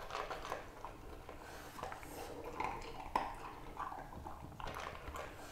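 French bulldog eating dry kibble from a bowl: faint, irregular crunching and light clicks of kibble against the bowl.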